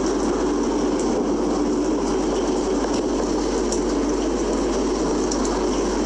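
Steady rain, an even unbroken rush of noise.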